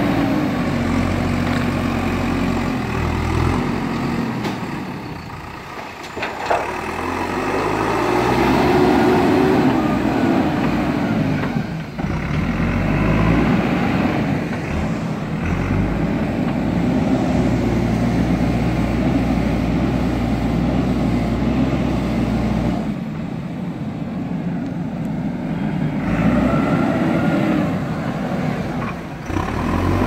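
Diesel engine of a JCB backhoe loader working under load, its revs rising and falling every few seconds as the front loader bucket digs into a dirt bank. A sharp knock sounds about six and a half seconds in.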